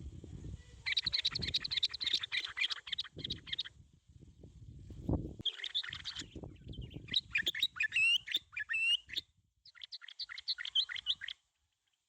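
Bulbul giving rapid, chattering calls in four bursts, some notes sweeping up and down, over low rustling and knocking. It cuts off suddenly near the end.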